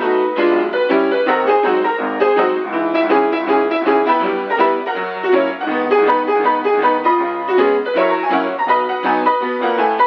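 Background piano music, a busy run of notes changing several times a second.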